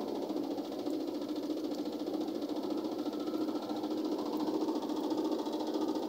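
Whirlpool LSP680GR top-loading washing machine spinning: a steady motor hum with a fast, even flutter.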